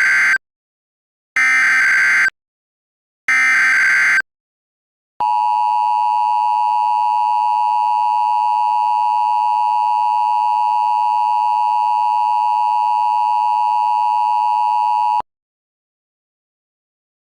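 Emergency Alert System tones: the screeching digital header bursts, three of them about a second apart, then a steady electronic attention tone held for about ten seconds that cuts off abruptly.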